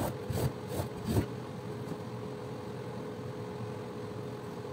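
A squeegee scraped across a rug's pile in a few quick strokes during the first second. Then a steady mechanical hum with a constant tone carries on alone.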